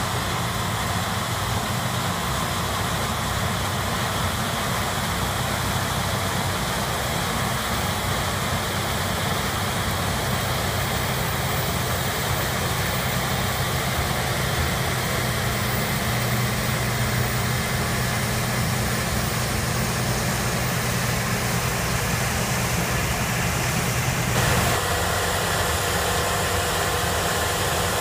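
Diesel engines and threshing machinery of a Claas Lexion 760 TerraTrac combine harvester cutting maize and unloading into a tractor-drawn trailer alongside, with the tractor's engine mixed in: a steady, unbroken drone. Near the end the tone shifts and a higher steady whine joins in.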